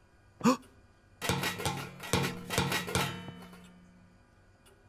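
A few chords struck on a plucked string instrument, about five strokes in quick succession, left to ring out and fade, after a brief vocal sound at the start.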